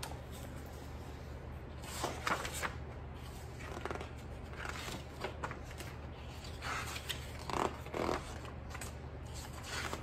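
Hardcover picture book being opened and its pages turned: a series of short, faint paper rustles and flips over a steady low hum.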